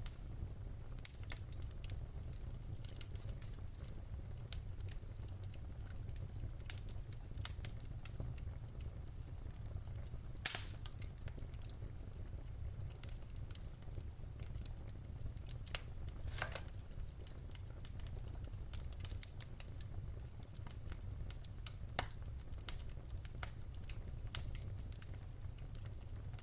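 Wood fire crackling, with irregular sharp pops and snaps over a steady low rumble of the flames. Two pops stand out, one about ten seconds in and another about six seconds later.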